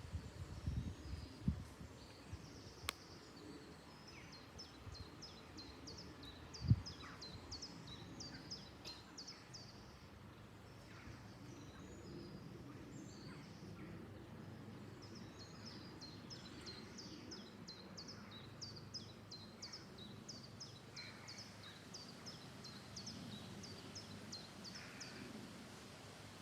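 Songbirds singing, one repeating short high chirps in quick runs, over a faint low rumble of outdoor ambience. A few soft knocks early on and a single sharp thump about seven seconds in.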